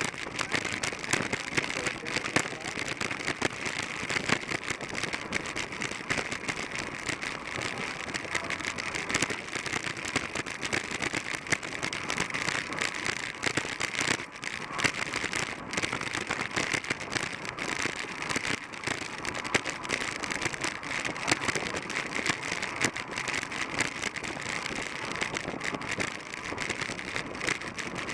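Steady wind rush and rolling noise on a bicycle-mounted action camera riding at about 23 mph in a pack of track bikes on a concrete velodrome, with a fine crackling rattle throughout.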